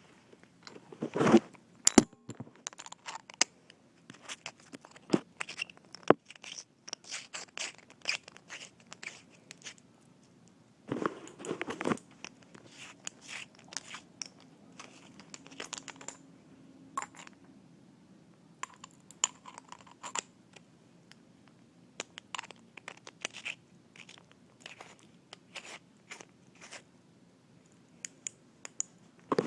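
Handling noise from a small flashlight being worked in the hands: irregular clicks, crackles and scrapes, busiest about a second in and again about eleven seconds in.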